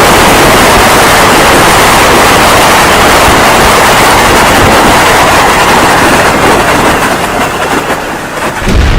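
Long explosion sound effect: a loud, continuous rumbling blast that holds for about six seconds and then fades, with a fresh low boom just before the end.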